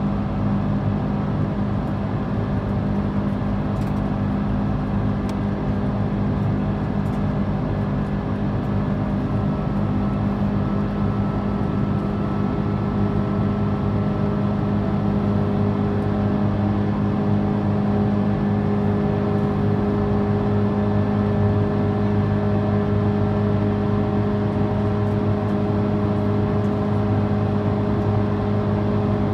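Airbus A330-300 cabin noise from its Rolls-Royce Trent 700 engines: a steady drone with several even hum tones, heard inside the cabin.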